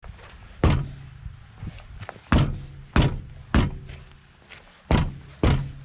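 A VAZ-2121 Niva's front wheel is kicked six times at uneven intervals. Each blow sets off a short metallic clank and ring from the loose brake caliper, the rattle of a caliper missing one of its anti-rattle springs.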